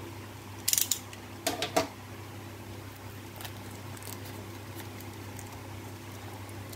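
Clear plastic shrink wrap crinkling and tearing as it is peeled off a small cardboard collector's box, in a few short bursts in the first two seconds, then faint rustles over a steady low hum.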